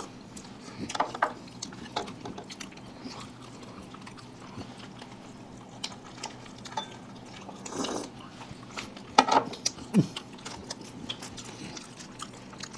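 Several people biting and chewing food close to the microphones, with scattered short clicks and mouth smacks. The loudest two come about three seconds before the end.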